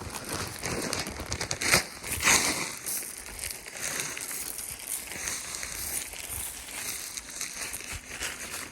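Dry brush and leaves crackling and rustling underfoot and against clothing as someone walks through thick cover, with a few sharper snaps about two seconds in.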